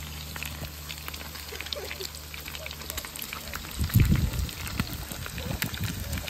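Sausages sizzling in hot fat in a frying pan, with a steady crackle of small irregular pops and spits. A louder low rumble comes about four seconds in.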